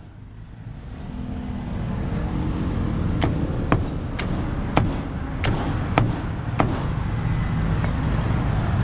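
Heavy meat cleaver chopping roast meat on a thick wooden chopping block: about seven sharp chops roughly half a second apart, starting about three seconds in. Under them a steady low rumble of road traffic that swells after a brief dip at the start.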